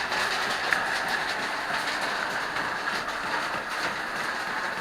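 Steady rushing of a waterfall swollen by rain, an even noise with no let-up, with a few faint ticks of water.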